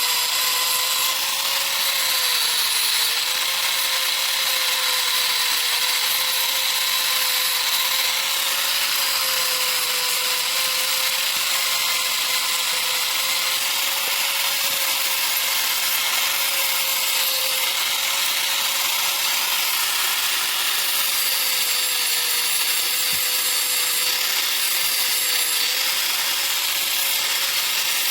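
Electric grinder running continuously on steel, a steady motor whine that wavers slightly under load over a constant high, hissing grind.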